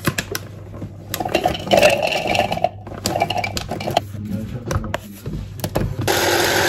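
Kitchen utensils clattering and scraping, then a small electric grinder runs steadily for about a second and a half near the end, grinding walnuts, before cutting off abruptly.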